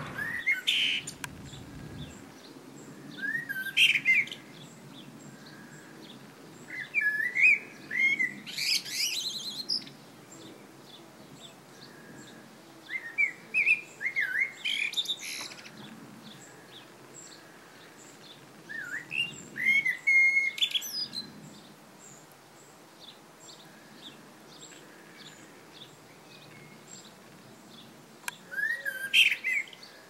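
Male common blackbird singing: about six separate song phrases a few seconds apart, each a short warble of sliding whistles that ends in higher, squeakier notes.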